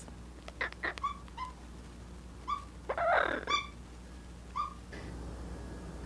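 Pet parrot making short soft chirps and clicks several times, with a longer, rougher call about three seconds in.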